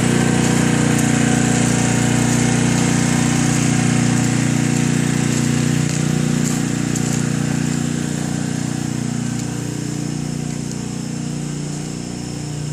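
An engine running steadily at a constant speed, its hum slowly fading over the last several seconds.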